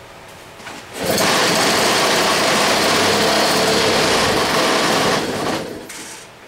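Antique two-stroke engine fired by a pull of its recoil starter: it catches about a second in, runs fast and steadily for about four seconds, then dies away. It runs only briefly because it has no fuel supply hooked up yet.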